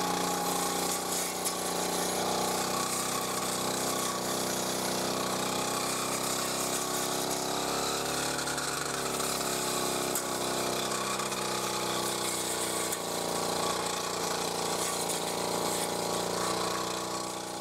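Small engine of an old brush cutter running steadily at cutting speed while the spinning head mows through weeds. Its engine speed sags briefly about halfway through under load, then picks back up.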